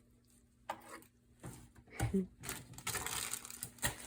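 Packaging and a small bag being handled: crinkling and rustling, with a few sharp knocks and a longer rustle about three seconds in.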